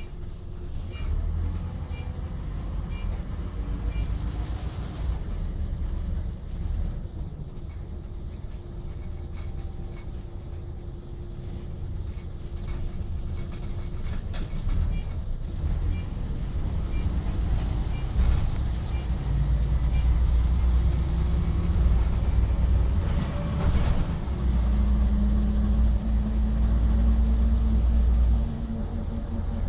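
Optare Solo bus heard from inside the passenger saloon while driving: a low engine and road rumble with frequent small rattles and knocks. It grows louder in the last third, with the engine note rising as the bus accelerates.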